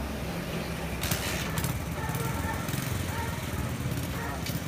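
Street noise with an engine running low and steady, with a few sharp clicks of clatter.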